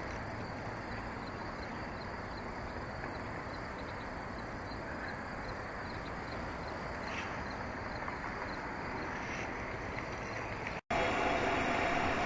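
Electric-bike conversion being ridden: steady wind and tyre noise. Near the end, after a brief break, it comes back louder with a steady motor whine as speed picks up.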